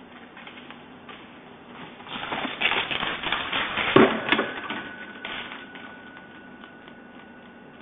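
Train running, a rapid rattling clatter that swells about two seconds in and fades a few seconds later, with a faint steady whine coming in about halfway.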